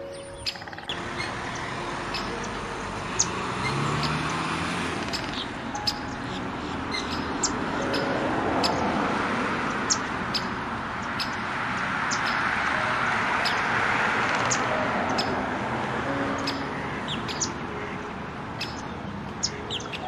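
A chorus of small birds chirping: many short, sharp high chirps over a continuous rushing background that swells twice.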